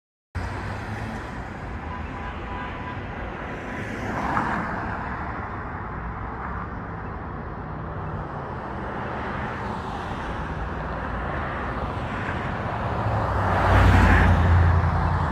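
Road traffic noise: a steady rumble of passing vehicles that starts abruptly after silence and swells as one passes louder about fourteen seconds in.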